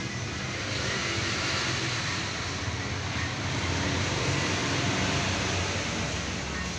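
Motorcycles riding past close by, their engine and road noise swelling about a second in and easing off near the end.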